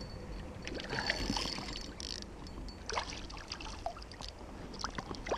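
River water flowing and lapping, with small intermittent splashes from a hooked brown trout being played at the surface close to the angler.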